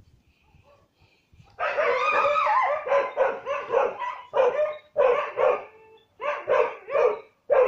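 Dog barking and yelping. About a second and a half in comes one drawn-out call that bends in pitch, then quick runs of short barks, several in each burst, with brief pauses between the bursts.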